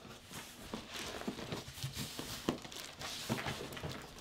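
Faint bumps, scuffs and rustling of a large cardboard box being carried in and handled, with a couple of louder thumps in the second half.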